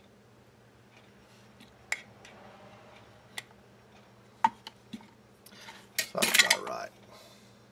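A few separate sharp clicks from handling a steel dial caliper, then about six seconds in a brief burst of metallic clatter as the caliper is set down among other metal hand tools.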